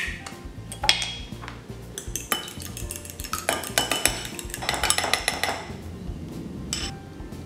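A metal fork beating an egg in a glass bowl: quick clinks of the tines against the glass, thickest in the middle of the stretch. Light background music underneath.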